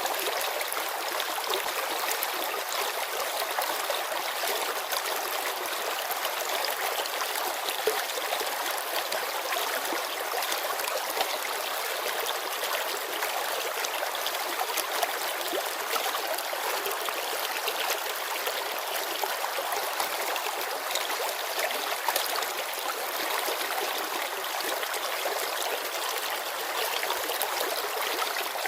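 Shallow mountain river running over stones, a steady babble with many small splashes and trickles.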